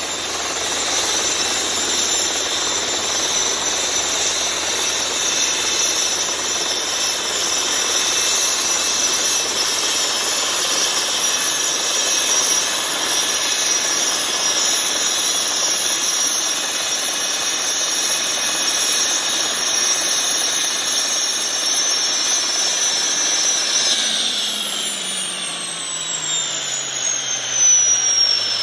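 Mosquito XET helicopter's turbine engine running with a steady high whine and its rotor turning. About 24 seconds in, the whine starts falling steadily in pitch as the turbine spools down.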